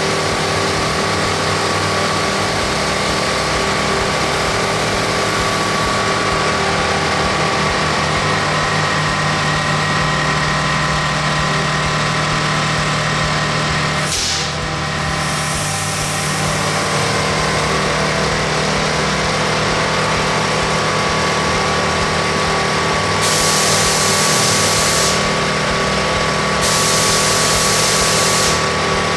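Coltri MCH 6 electric high-pressure breathing-air compressor running steadily as it fills a scuba cylinder. Two bursts of hissing air, each about two seconds long, come about two-thirds of the way in and near the end as the condensate drain valve is opened to blow out water.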